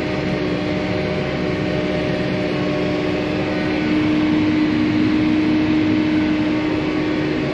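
John Deere 4730 self-propelled sprayer running steadily, heard from inside its cab while spraying: an even mechanical hum with one strong low tone that grows a little louder about four seconds in.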